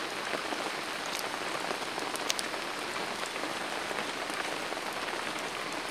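Steady rain falling, with individual drops ticking through it.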